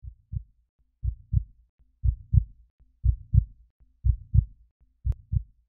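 Heartbeat sound: paired low thumps, lub-dub, about once a second, with a faint click near the end.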